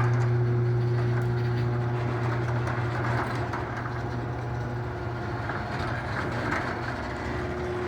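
LiftMaster 8365W garage door opener running with a steady low mechanical hum, slowly easing in level.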